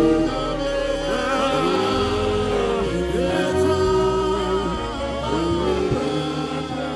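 Gospel worship singing, several voices with wavering, sliding pitches, over steady low bass and keyboard-like accompaniment.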